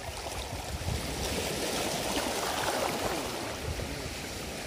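Small sea waves lapping and washing against shoreline rocks: a steady wash of water that swells a little in the middle.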